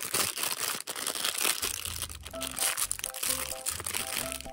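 Shiny foil wrapper around a toy figure being crumpled and pulled open by hand, a dense run of crinkles and crackles, over background music.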